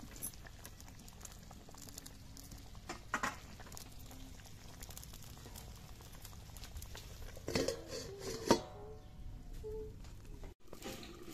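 A steel lid clatters onto a steel kadai about eight and a half seconds in, with a brief ring after it. Before that there are a few light knocks over a faint background.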